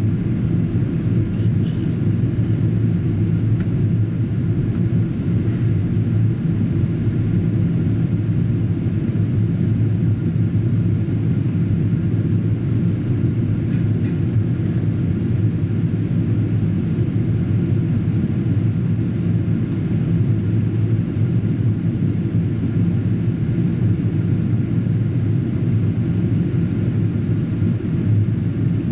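Steady low rumble of engine and airflow noise inside the passenger cabin of a Boeing 777-200ER airliner descending on approach.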